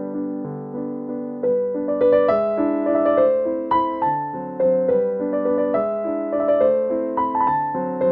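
Background piano music: a melody of struck notes over chords, each note starting sharply and fading.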